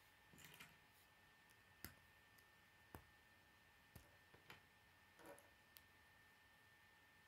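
Faint clicks of K'nex plastic rods and connectors being handled and snapped together: four sharp clicks spread about a second apart, with a few softer rattles of loose parts.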